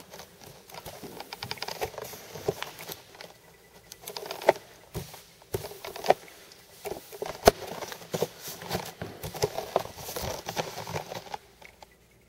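T-bar floor-finish applicator worked across a hardwood floor through wet finish: irregular clicks, taps and soft patter from the applicator head and pole, over a light swishing of the pad.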